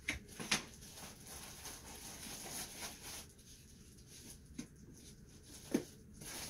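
Quiet rustling and handling of packaging as a padded camera lens case is unpacked: paper and plastic wrapping crinkling. There are two short sharp clicks in the first half-second and another short knock near the end.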